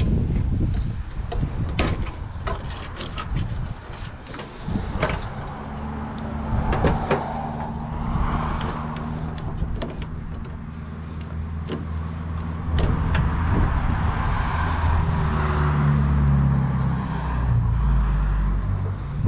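Sharp clicks and knocks of wiring being snipped and pulled out of a gas hot water unit, with a motor vehicle engine running from about six seconds in, louder near the end.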